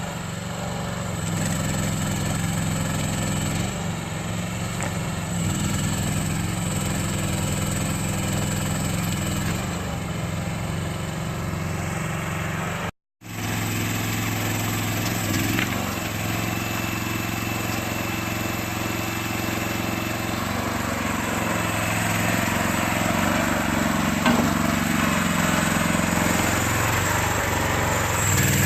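Small engine of a towable backhoe running steadily, its pitch shifting a little now and then. The sound cuts out for a split second about halfway through.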